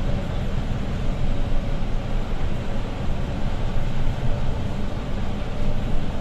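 Cabin noise of a Setra S415 LE business diesel bus driving along a country road: a steady low engine drone mixed with tyre and road noise, with no sudden events.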